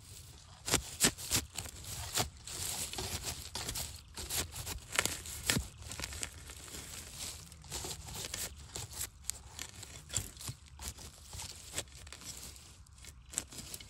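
A digging tool is stabbing and scraping into soil and dry bamboo leaf litter around a bamboo shoot: an irregular run of crunching, crackling strikes with leaf rustle. The sharpest strikes come about a second in.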